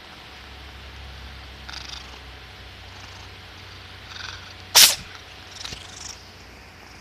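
A cat purring with a steady low rumble and a few short breathy sounds, then one sharp, loud sneeze a little under five seconds in, followed by a smaller burst about a second later.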